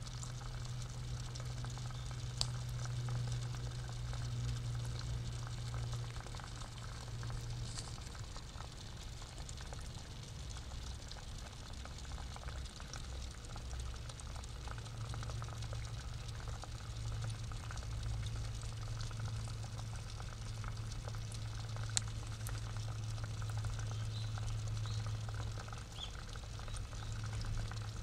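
Pond water bubbling and trickling over a steady low hum, with two faint clicks.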